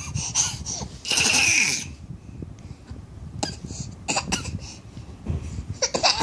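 A six-month-old baby gives a few short, pretend coughs while feeding: a loud breathy cough about a second in, then several shorter ones. The mother takes them for playful coughing on purpose rather than choking.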